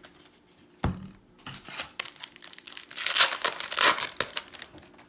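Foil wrapper of a Topps Chrome trading card pack crinkling and tearing as it is opened, with a sharp click about a second in and the loudest, densest crackle from about three to four seconds in.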